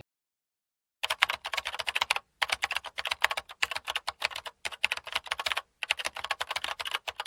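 Rapid, continuous keyboard-typing clicks, many per second, starting about a second in after dead silence, with two brief pauses.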